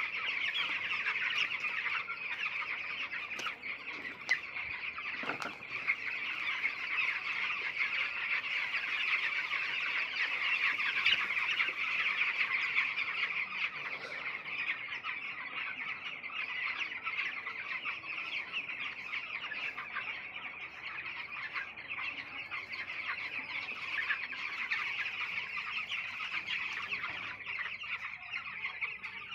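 Many chickens calling at once: a dense, steady chorus of clucking and cheeping from a large poultry flock, with a few brief knocks about four and five seconds in.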